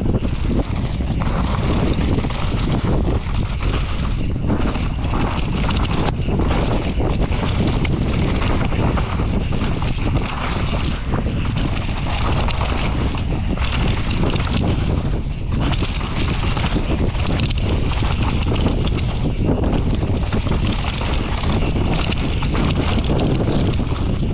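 Downhill mountain bike ridden fast down a rough dirt track: a steady rush of wind on the microphone over a constant rattle and clatter of the bike and knocks from the tyres hitting the ground.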